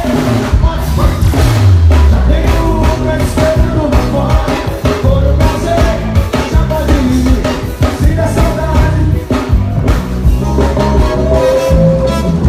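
Live band music through a concert sound system, loud with a heavy bass line and a steady beat, with singing over it.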